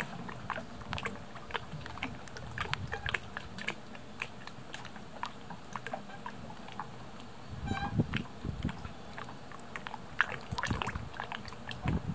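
Small ripples lapping against a moored boat's hull: a run of irregular little slaps, clicks and gurgles over a low steady rumble, with a brief squeak about eight seconds in.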